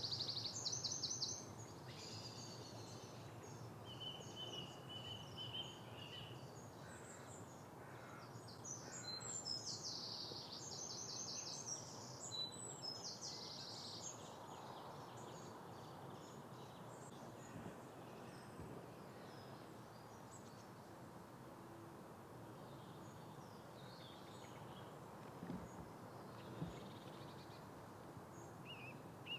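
Small songbirds singing over a faint, steady outdoor background. Fast, high trilled phrases come at the start and again about ten seconds in, with fainter chirps afterwards.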